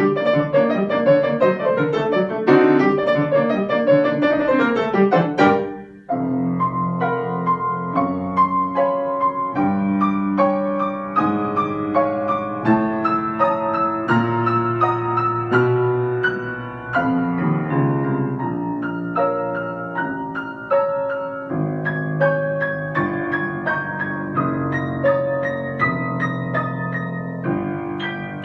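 Solo piano improvisation: a fast, dense passage that breaks off about five and a half seconds in, then a slower passage of evenly spaced notes and chords.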